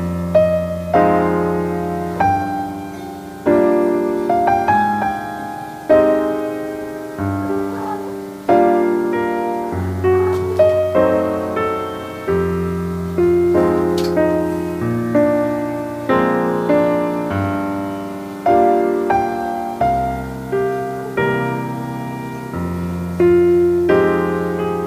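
Background piano music: notes struck one after another, each ringing and fading before the next.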